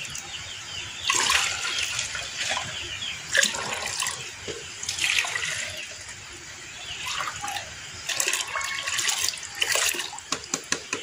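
Molasses-and-EM4 mixture poured from a plastic bottle into a plastic bucket of water, splashing in several surges as the bottle is tipped, with a run of quick clicks near the end.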